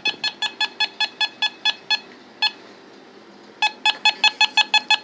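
Handheld microwave (RF) meter beeping in rapid short pitched pulses, about five a second, its audio alarm reacting to the signal picked up with the antenna held toward the ceiling. The beeping stops for about a second and a half midway, with one lone beep, then starts again.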